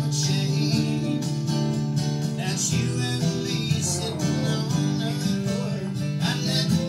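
Live rock music with an electric guitar leading, in a passage without vocals.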